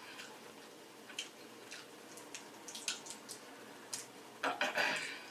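Small crackles and clicks of a cooked shellfish shell being picked apart by hand, with a louder crunch of shell about four and a half seconds in.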